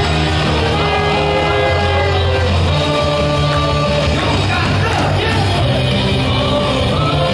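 Loud stadium cheer song played over the public-address speakers, with the crowd singing and shouting along.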